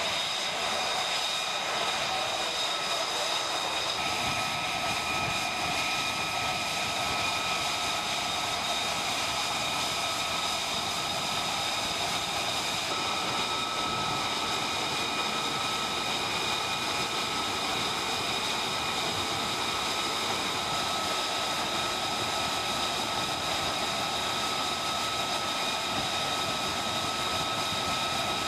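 F-35B Lightning II's F135 jet engine running steadily on the flight deck: an even rush of noise with a high turbine whine of several steady tones, holding at one level without a takeoff surge.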